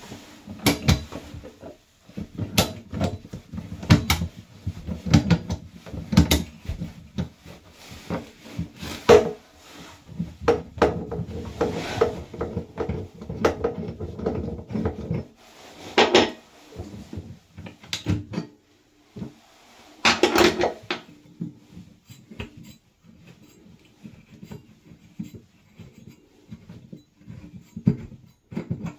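Metal clicks, knocks and scrapes of a wrench working a compression shutoff valve loose on a water pipe stub, with the valve clanking as it comes off. The knocks are irregular and grow sparser in the last few seconds.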